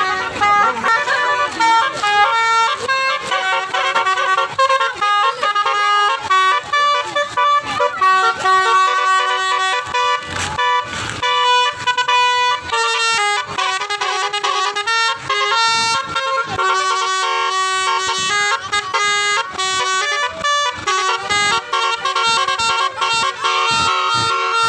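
Basuri horn, a multi-trumpet musical air horn of the kind fitted to Indonesian buses, playing a tune as a run of short and held notes that change pitch in steps.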